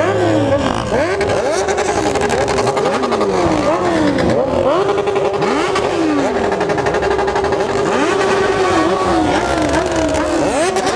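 Many motorcycle engines revving at once, their throttle blips rising and falling over one another every second or so, with one engine note held steady underneath.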